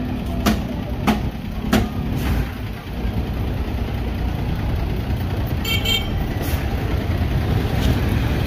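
Street noise with a steady low motor-vehicle rumble, three sharp knocks in the first two seconds, and a short high-pitched double toot about six seconds in.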